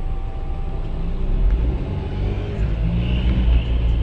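A car's engine and road noise heard from inside the cabin while driving in traffic: a steady low rumble.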